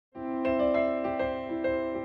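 Soft keyboard background music that starts just after the beginning, with single notes struck one after another over held tones.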